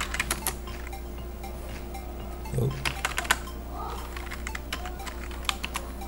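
Computer keyboard keys clicking in three short runs of keystrokes, near the start, around three seconds in and near the end, over a steady low hum.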